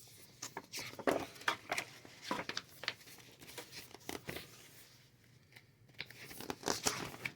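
Large folded paper wargame maps being unfolded by hand: irregular rustling and crinkling of paper, with a quieter pause about five seconds in.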